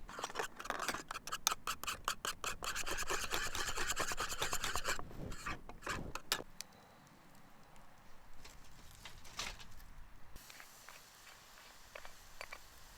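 Rapid, rhythmic scraping strokes for about six seconds, then quieter, with a few scattered clicks.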